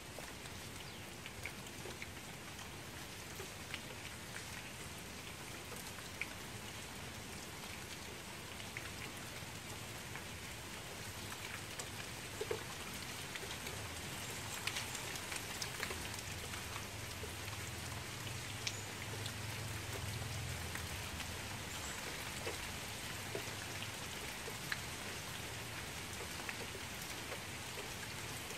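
Rain falling on a shallow pool of still water: a steady hiss with many separate drop splashes ticking through it, growing a little heavier about halfway through.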